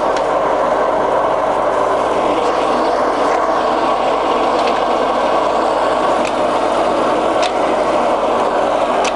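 Ursus centre lathe running under power, its headstock gearing and lead screw turning, making a steady gear whir with faint light ticks every second or so.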